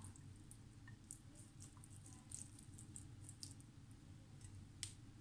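Faint soft clicks and wet squishes as cooked rice noodles are set down on a ceramic plate with a serving spoon, with one sharper click near the end, over a low steady hum.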